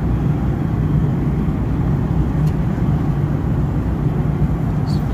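Airliner cabin noise in flight: a steady low rumble of engines and airflow.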